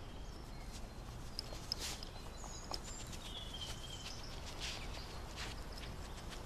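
Quiet outdoor ambience: a steady low background rumble with a few faint bird chirps about halfway through and scattered light ticks.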